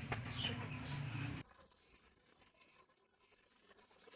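Faint room tone with a few soft ticks that cuts off suddenly about a second and a half in, then silence.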